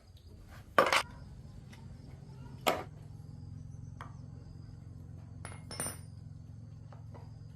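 Metal parts and tools knocked and clinked together on a workbench: a loud knock about a second in, a second near the middle and a ringing clink near the end, over a low steady hum that starts about three seconds in.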